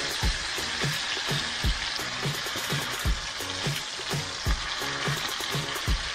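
Black sea bass frying in hot oil in a pan, a steady sizzle. Background music with a steady beat plays alongside, its bass thumps the loudest moments, about every second and a half.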